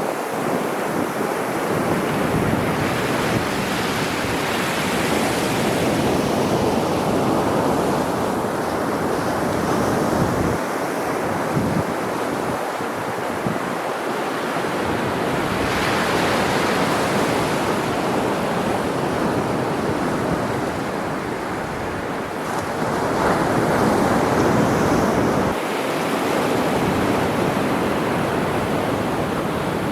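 Winter sea waves breaking and washing on the shore in a continuous surf, swelling louder now and then, with wind buffeting the microphone.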